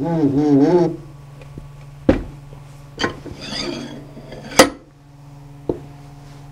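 Metal parts clanking and scraping on a steel press bed as an air motor's rear plate and bearing are set in place: four sharp knocks, the loudest about four and a half seconds in, with a short scraping rub between the second and third.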